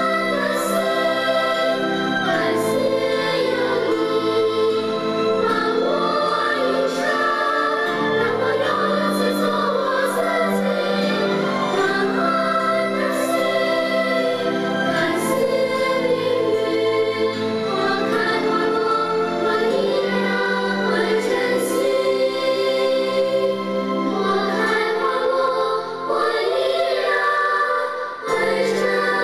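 Children's choir singing a slow song with instrumental accompaniment.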